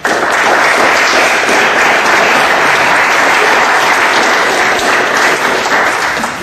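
Audience applauding, loud and dense, breaking out suddenly at the end of a spoken talk and dying down near the end.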